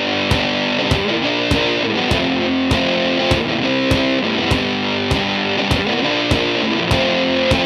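Background rock music: distorted electric guitar over a steady drum beat.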